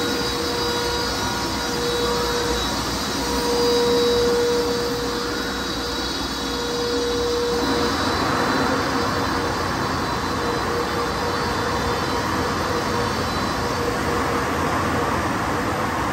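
MacNeil tunnel car wash equipment running: water spray and spinning wash brushes scrubbing along a vehicle, over a steady motor whine. A louder, denser scrubbing hiss comes in about eight seconds in.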